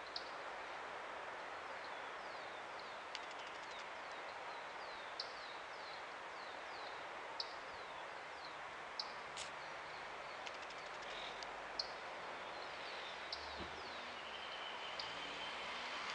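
Fork-tailed flycatcher calling: short, high, downward-sliding chirps repeated irregularly about once a second, with a few sharp ticks, over a steady background hiss.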